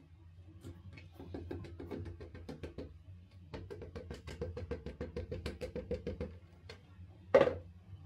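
Fast, even knocking, about eight knocks a second, in two runs, as the plastic mould and bucket knock against the wooden tabletop while plaster investment is poured and jiggled down. One loud knock comes near the end.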